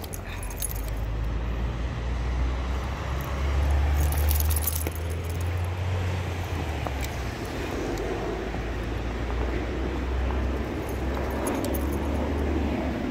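A steady low rumble, with a brief metallic jingle of the dog's harness tags about four seconds in.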